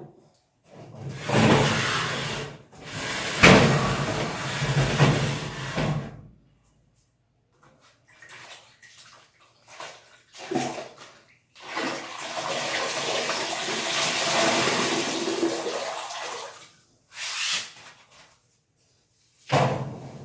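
Noise of cleaning under a kitchen stove: two long rushing stretches of several seconds each, with short scraping or knocking bursts between them.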